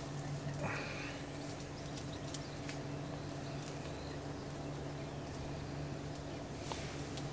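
Faint clicks and rustles of hands working bait and PVA mesh into a PVA bag, with a short scrape about a second in, over a steady low hum.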